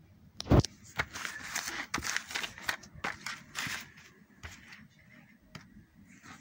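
Handling noise: a sharp thump about half a second in, then a few seconds of paper rustling with light clicks as the manual's printed pages are moved, then a couple of isolated clicks.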